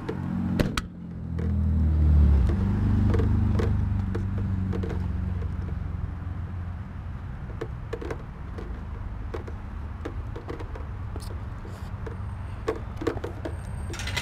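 A vehicle engine's low hum swells about a second in, is loudest around two seconds, then eases off and runs on steadily. Footsteps and small clicks come over it, and near the end there are a few sharper metal clicks at a chain-link gate.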